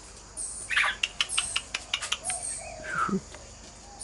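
Princess parrots calling: a short squawk about a second in, then a quick run of sharp clicks, and a brief falling chirp near the end.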